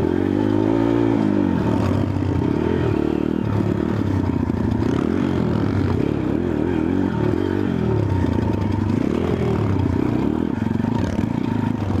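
Small four-stroke single-cylinder pit bike engine, heard from on board, revving up and down continuously as the rider works the throttle and shifts along a bumpy dirt trail.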